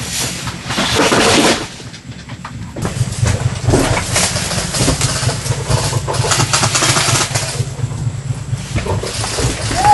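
Engine of a small off-road utility vehicle running steadily, heard from inside the cab, with loud bursts of rushing noise over it near the start and again about four seconds in.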